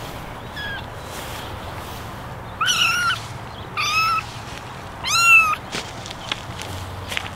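Very young kittens mewing: a faint short mew, then three loud high-pitched mews about a second apart, each around half a second long, with a few light clicks near the end.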